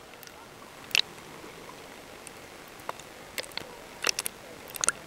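Sound heard by a camera held underwater in the sea: a steady hiss broken by a handful of short, sharp clicks and crackles, the loudest about a second in and several more near the end.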